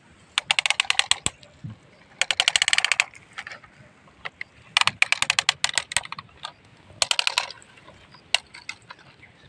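Rapid plastic clicking from a toy excavator, probably its ratcheting arm joints or gears being worked by hand. The clicks come in four quick bursts of about a dozen a second, with a few single clicks between them.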